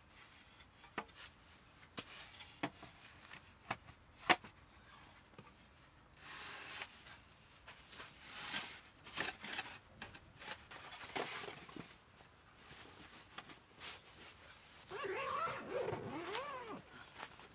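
Sharp clicks and knocks of metal panels and legs as a black metal folding camp table is fitted together, followed by rustling and sliding of the parts. Near the end a zipper is pulled open on a padded fabric bag.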